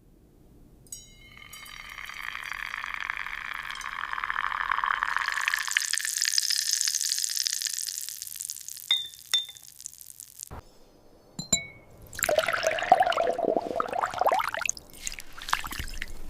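Liquid pouring onto glass, rising in pitch for several seconds. Then a few sharp glass clinks, and a stretch of crackling, crunching glass sounds.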